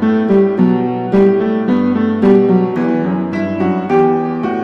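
Background piano music, a melody of single struck notes about every half second.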